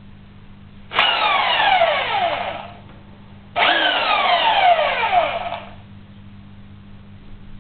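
Parkside 900 W belt sander switched on in two short blips while held in the air, each time spinning up at once and then coasting down with a falling whine lasting one to two seconds.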